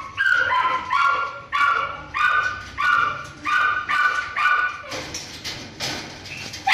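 A dog gives short, high-pitched whining cries, about eight in a row at roughly two a second, which fade to fainter, noisier sounds near the end.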